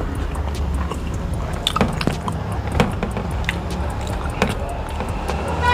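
Close-miked eating sounds: wet chewing, lip smacking and fingers working through fried fish and rice on a plate, heard as many short, irregular clicks. A steady low hum runs underneath.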